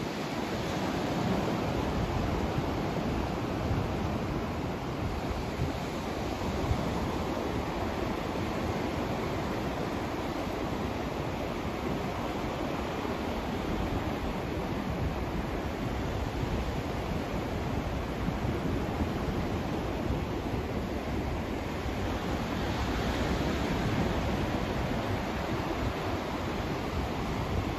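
Steady white-noise rush, dense and unbroken, swelling gently now and then.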